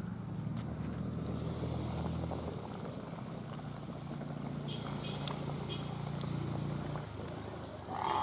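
An engine running steadily, a low hum that shifts slightly about two and a half seconds in and fades away about seven seconds in.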